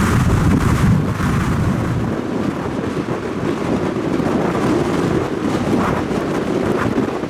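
Large storm waves crashing and surging against a pier and breakwall, a loud, steady, low rumble of surf, loudest in the first second, with wind buffeting the microphone.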